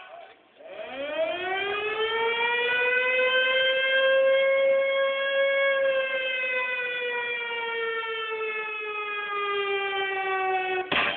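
A single siren wail of the air-raid kind: it rises steadily over about four seconds, holds, then slowly sinks in pitch, and cuts off abruptly near the end.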